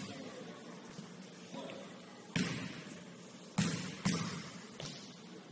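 A basketball bouncing on a hard court floor: four loud, irregularly spaced bounces with echo tails in the second half, after a quieter start.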